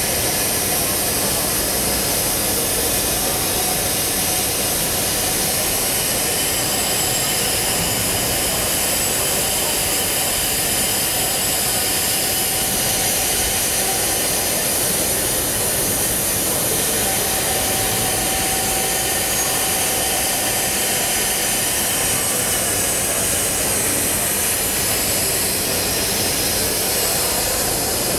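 Machining centre running: a loud, steady rushing noise with faint high steady whines, unchanged throughout.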